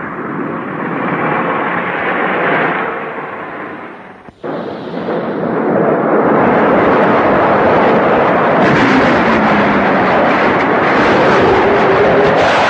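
Loud, continuous din of artillery shelling and explosions. It drops out for a moment about four seconds in, then returns louder, with a falling droning tone in the second half like aircraft passing over.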